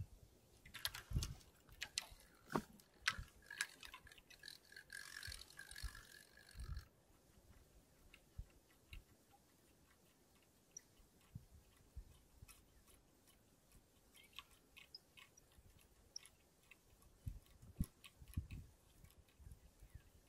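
Fishing rod and spinning reel being handled and wound: a run of clicks and knocks in the first several seconds, then faint ticking from the reel.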